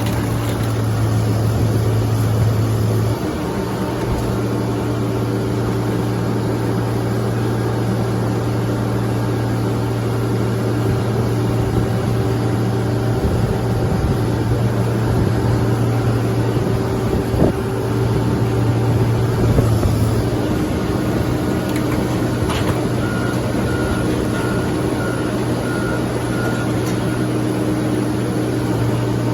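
A large engine running steadily with a constant low hum, its note shifting slightly about 3 seconds in and again about 20 seconds in.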